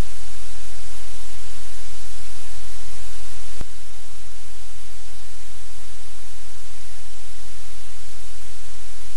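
Steady, loud static hiss with a strong low electrical hum, the noise of the audio feed itself; one sharp click about three and a half seconds in.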